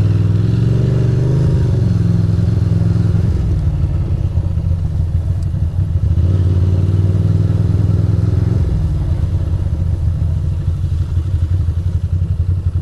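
2006 Ducati Monster 620's air-cooled L-twin engine heard from the rider's seat. The revs rise as it pulls away, rise again about six seconds in, then drop to a lower, uneven beat near the end.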